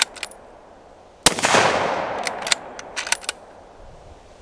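Springfield Armory 2020 Redline .308 bolt-action rifle with a radial muzzle brake, fired from the shoulder: one sharp shot about a second in with a long fading echo, then the bolt worked in a quick run of metal clicks, and the next shot right at the end. A few bolt clicks also come right at the start.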